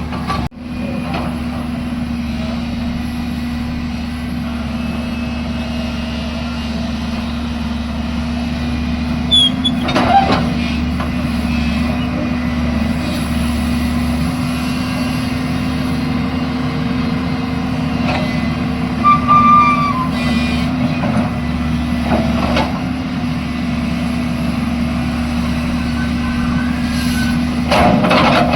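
Heavy diesel engine running steadily at constant speed, with a few brief knocks or clanks at about ten seconds, eighteen seconds and near the end.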